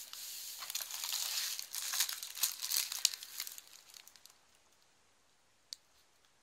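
Crinkly rustling of straw-like packing filler and wrapped packets as hands rummage in a wicker hamper, dying away after about four seconds. One small click near the end.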